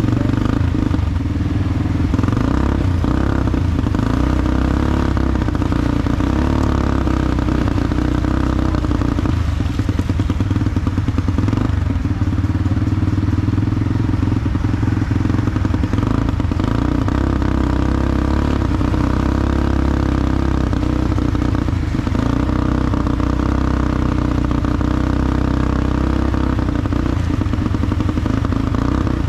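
Automatic ATV engine running steadily under way, with a few scattered knocks and rattles.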